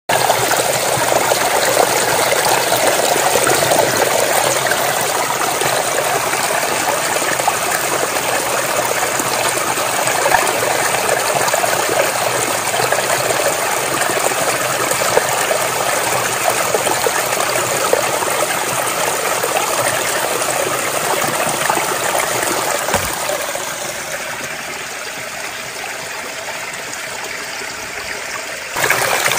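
Mountain spring water running and trickling over rocks, a steady splashing rush. Near the end it falls quieter for a few seconds, then comes back up.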